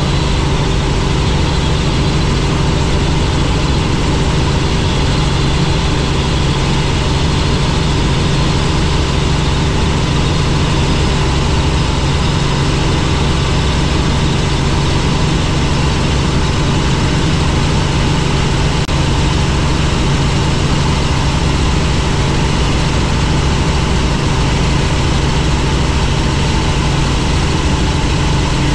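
Helicopter in flight: the steady, unbroken drone of its engine and rotor, with a low held hum.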